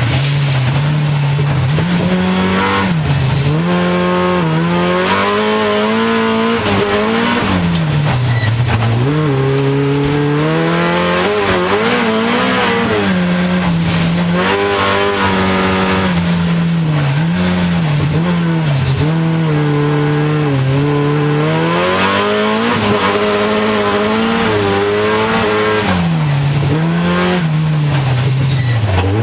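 Hyundai Accent rallycross car's engine driven hard at race pace, heard from inside the stripped cabin. The engine note climbs and drops over and over, with sharp dips as the throttle comes off.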